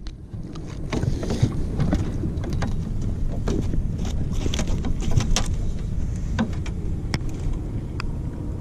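Steady low rumble of a small fishing boat on the water, with scattered light clicks and knocks.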